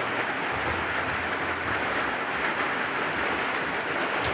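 Steady rain falling onto surfaces, an even, unbroken hiss of a long, persistent downpour.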